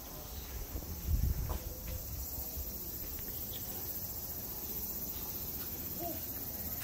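Insects chirring steadily in a high, shrill band, with a brief low rumble about a second in.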